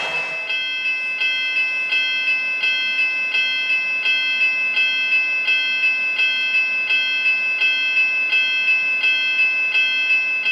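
Railroad crossing bell ringing steadily and evenly, about three strikes a second, with a ringing metallic tone that holds between strikes.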